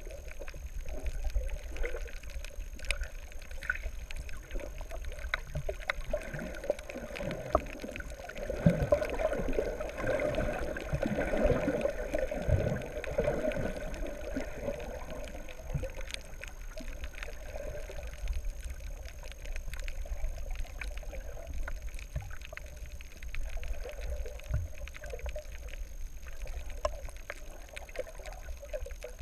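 Muffled underwater water noise heard through the camera underwater: a steady low rumble of moving water with gurgling that swells for a few seconds near the middle, and scattered faint clicks throughout.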